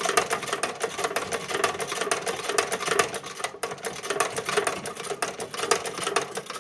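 Treadle-driven 1911 Singer 29-4 patcher sewing machine stitching, a fast run of rapid mechanical clicks from the needle bar and feed, with a brief break about three and a half seconds in.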